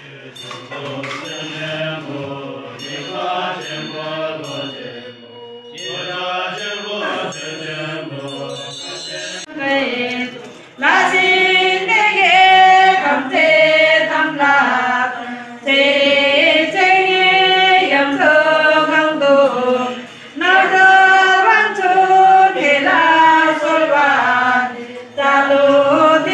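Buddhist mantra recitation: several voices chanting together in a rising and falling melody. It is fairly soft at first and turns much louder about eleven seconds in, coming in phrases with short breaks between them.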